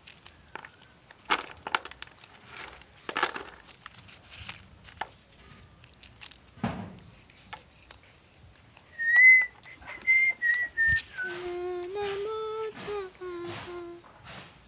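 Dry bean pods crackling and snapping as beans are shelled by hand. About nine seconds in, a person whistles a few notes, then goes on to hum a tune to the end.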